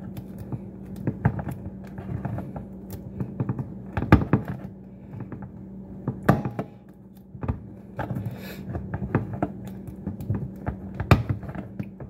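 Can-opener blade of a cheap multi-tool biting a series of small holes around the rim of a metal food can: irregular clicks and sharp metallic taps, a few louder thunks among them.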